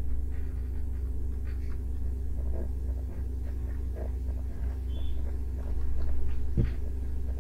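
Steady low electrical hum, with a few faint scattered clicks and a soft thump near the end.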